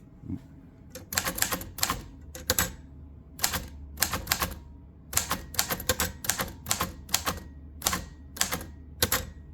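1932 Royal Signet typewriter being typed on: a run of sharp key strikes, irregular and a few per second, starting about a second in.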